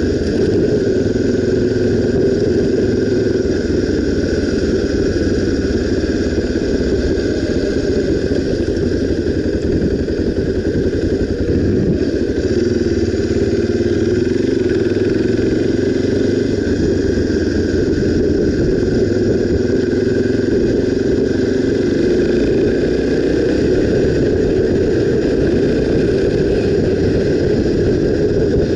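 Honda XR250 Tornado's single-cylinder four-stroke engine running steadily under way, at an even pitch with no sharp revving.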